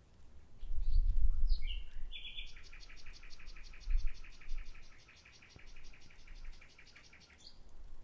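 Common nightingale singing: a few short whistled notes, then a long rapid trill of repeated notes, about eight a second, lasting some five seconds before it stops. A low rumble sits under the song, loudest about a second in and again near four seconds.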